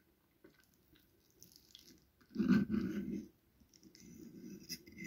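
Close-miked wet eating sounds: a fork working into a sauce-covered minced-meat cutlet, with soft chewing. The loudest squelch comes a little past halfway, followed by a quieter steady rustle.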